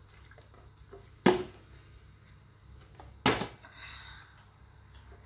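Small plastic water bottle with some water in it striking a tile floor twice, about two seconds apart, as it is flipped and lands or falls over.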